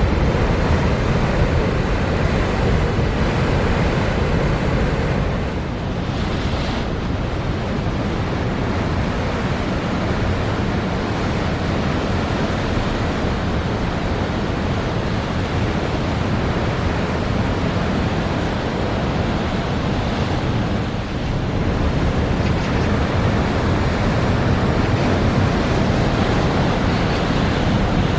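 Heavy storm surf crashing continuously on a rocky shore, with strong wind buffeting the microphone.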